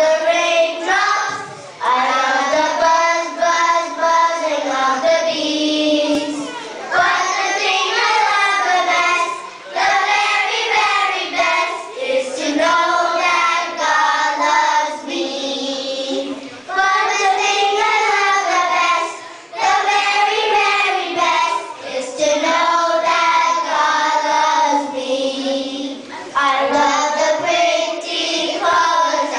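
A children's choir singing together, in sung phrases of a few seconds each with short breaks between them.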